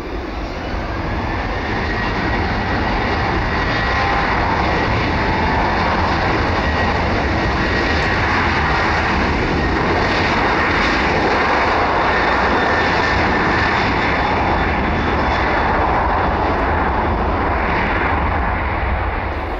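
Boeing 737-800's twin CFM56-7B turbofan engines at takeoff thrust as the jet accelerates down the runway close by. A loud, steady engine noise carries a fan whine that rises in pitch over the first couple of seconds and then holds steady.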